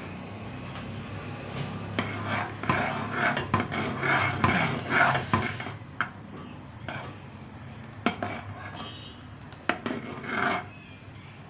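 A metal spoon stirring thickened milk in an aluminium saucepan, scraping the pan in quick repeated strokes for a few seconds. Then come a few sharp clinks against the pan and a last short stir. A faint steady low hum runs underneath.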